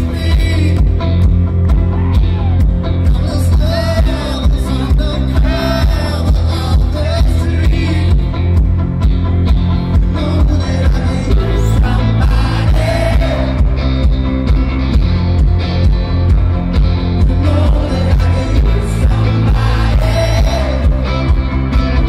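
Rock band playing live and loud: electric guitars, bass and drums with a male lead singer, the bass heavy as heard from the crowd.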